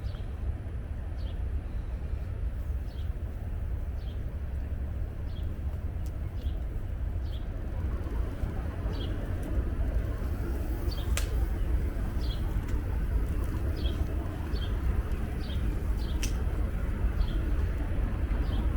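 A bird chirping over and over, short falling chirps about once a second, over a steady low rumble. Two sharp clicks stand out, one about midway and one near the end.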